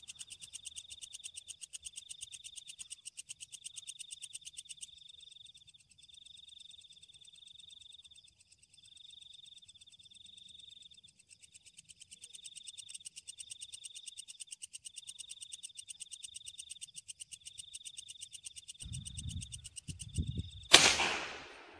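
High, pulsing night chorus of frogs and insects, trilling in repeated groups of about a second. Near the end come a few low thumps, then a single loud, sharp gunshot at a wild boar.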